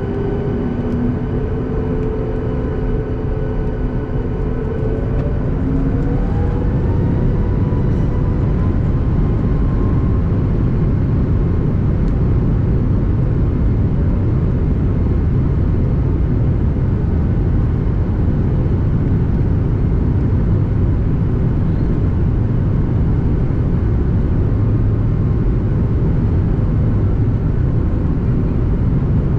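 Boeing 737 MAX 8's CFM LEAP-1B jet engines, heard from inside the cabin, spooling up to takeoff thrust. Several whining tones rise together a few seconds in, then hold steady over a loud, even roar.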